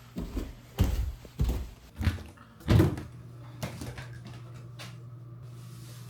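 A run of heavy thumps and knocks, about one every half to three-quarters of a second for the first three seconds, then a few fainter ones, over a steady low hum.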